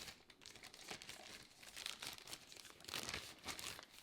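Small plastic bag crinkling and rustling as a lock is pulled out of it: irregular crackles, louder at the start and again about three seconds in.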